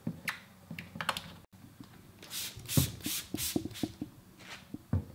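Hand trigger spray bottle spritzing liquid onto film-covered car bodywork: about five quick hissing squirts in a row around the middle, with trigger clicks. A few light clicks and taps come before the spraying, and a low thump near the end.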